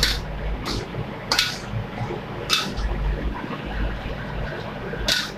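Long metal ladle scraping and knocking against a large aluminium wok while curry is stirred, about five short sharp strokes at uneven intervals, over a steady low rumble.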